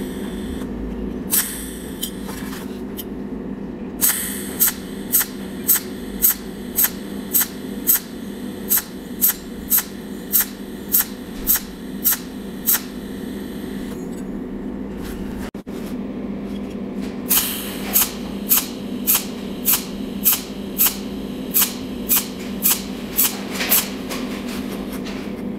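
Cold welding machine firing its tungsten electrode in short arc pulses, one sharp snap per weld spot at about two a second, in two long runs with a pause between them. A steady low hum sits under it throughout.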